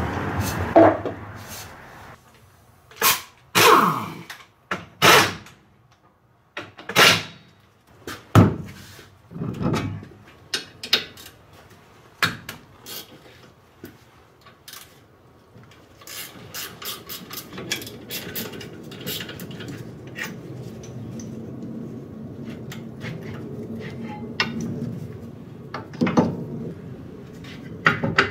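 Hand-tool work on a pickup's rear axle brake: scattered clicks and knocks as the brake caliper is unbolted and lifted off the rotor. A steady low background noise comes in about halfway through.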